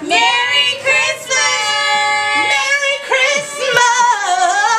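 Women singing high, held notes, the notes wavering with vibrato in the second half.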